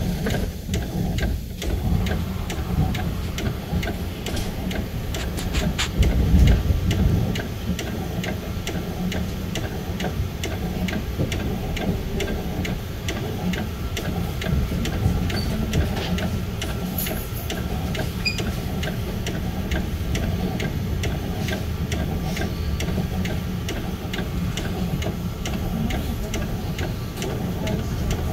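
Budd M3 electric commuter train rolling slowly over yard switches, heard from the cab: a low rumble of wheels and motors, louder for a moment about six seconds in, with a steady ticking about twice a second.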